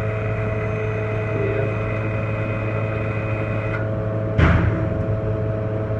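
Lincoln PowerWave 455M welding power source humming steadily under test, with a high steady whine that stops a little before the middle. A sudden loud clunk comes about four and a half seconds in.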